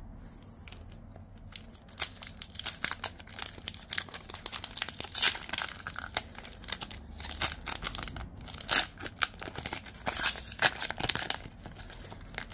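Foil trading-card pack wrapper being torn open and crinkled by hand: a dense run of sharp crackles and rips that starts about two seconds in and dies down near the end.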